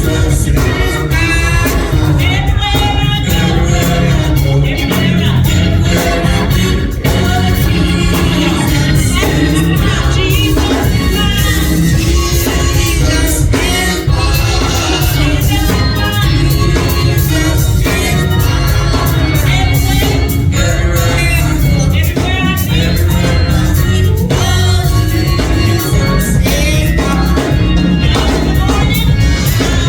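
Gospel music with singing over an organ and a heavy, steady bass.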